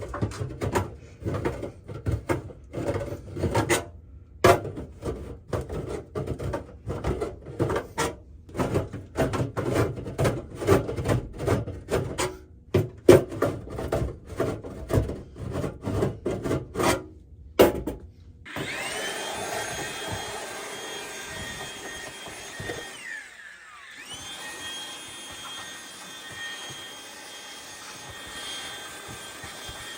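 Hand reaming of a cut hole in metal: quick repeated scraping strokes, about two a second. Then, about 18 seconds in, a power drill winds up and runs with a steady whine, spins down briefly around 23 seconds, and starts again.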